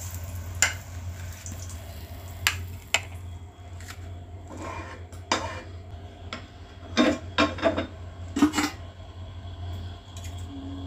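Metal spatula clinking and scraping against a ceramic plate and a frying pan as a fried egg is slid off onto the plate: scattered sharp clinks, with a quick cluster of the loudest ones in the second half, over a steady low hum.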